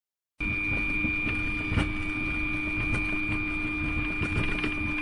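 Fokker 100 cockpit noise on the ground: a steady high-pitched whine and a lower hum over a low rumble. A single knock comes a little under two seconds in.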